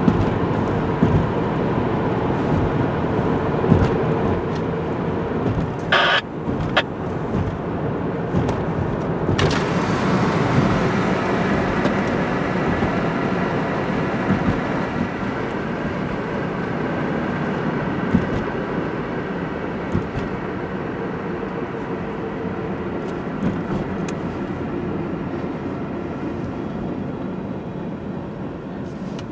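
Car being driven on a highway, heard from inside the cabin: steady road and engine noise, easing slightly over the second half.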